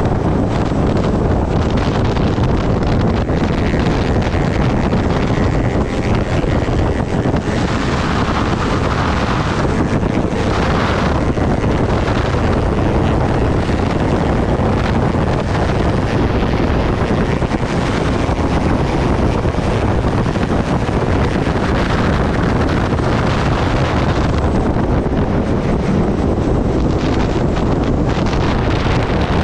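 Wind rushing steadily over the microphone of a sport motorcycle riding at highway speed, with the bike's engine and tyres running underneath.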